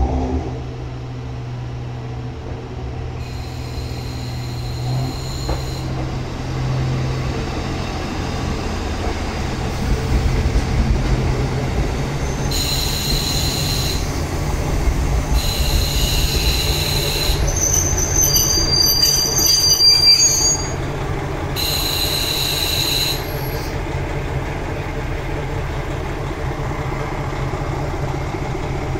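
A two-car JR Hokkaido KiHa 40 diesel railcar set creeps slowly into a siding, its diesel engines throbbing steadily. Several high-pitched metal squeals come from its running gear, the first a few seconds in and the last about three-quarters through.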